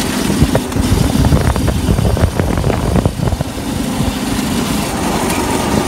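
Go-kart engine running as the kart drives along a road.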